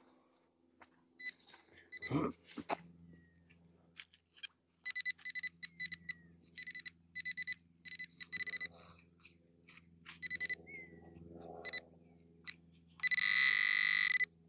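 Quest Xpointer Max pinpointer beeping in quick pulses as it is probed through the dug soil, then holding a continuous tone for just over a second near the end as it closes on the metal target. A dull thud of soil or spade comes about 2 seconds in.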